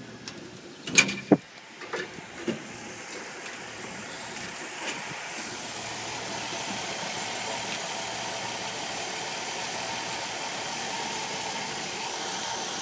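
Engine of a Nordco 6008 hi-lift truck idling steadily, with a few sharp knocks in the first couple of seconds.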